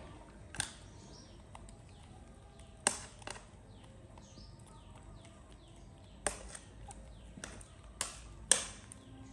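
Scissors snipping through noodles and greens over a plate: about eight sharp clicks, scattered unevenly. Faint high chirps sound between them, mostly in the middle.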